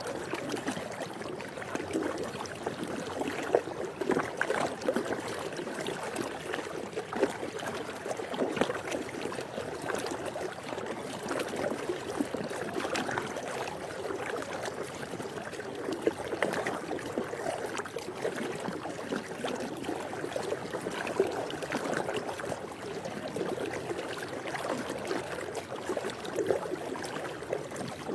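Swimming pool water lapping and trickling, a continuous wash of small irregular splashes.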